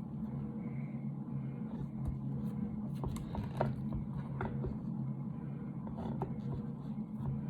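Scattered light clicks and knocks of the Benelli M2 shotgun's stock, Burris Speed Bead and shims being handled and fitted together as the parts are lined up, over a steady low hum.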